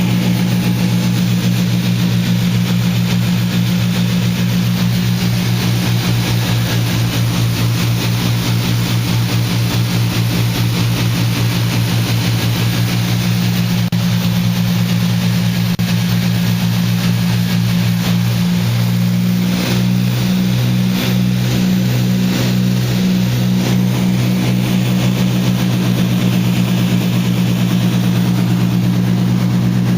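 Cessna 310's twin piston engines running with a steady drone. About two-thirds of the way in the pitch shifts slightly and a regular pulsing beat sets in.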